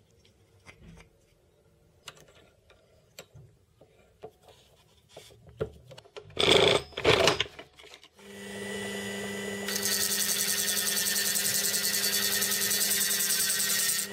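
Light handling clicks and knocks, then two short louder rustling knocks. About eight seconds in, a bench drill press motor starts and runs with a steady hum. About a second and a half later a handheld rotary tool with a cutting disc starts up, adding a high whine and hiss over the hum.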